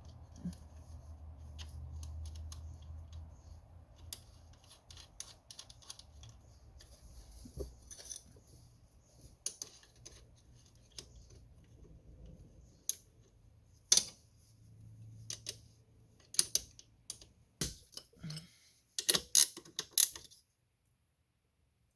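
Hand tools working on the Yamaha Banshee's chain roller: scattered metal clicks and taps as the roller's nut is put on and tightened, with a quick run of clicks near the end before it cuts off suddenly.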